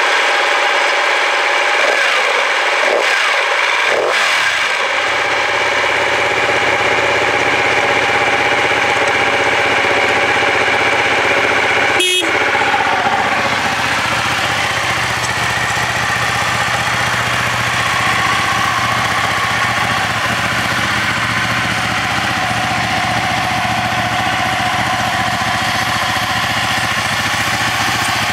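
Ducati 1199 Panigale's Superquadro V-twin idling steadily through its stock Japanese-market exhaust, the engine not yet warm. One short sharp click about twelve seconds in.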